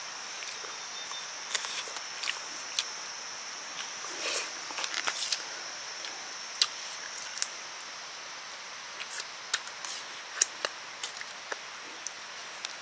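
Scattered light clicks and taps over a steady high-pitched hiss that weakens about halfway through.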